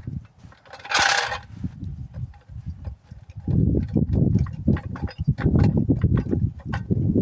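Clattering metal knocks and clicks as a car is worked off its jack stands with a floor jack, with a short hissing burst about a second in and a dense run of knocks over a low rumble from about three and a half seconds on.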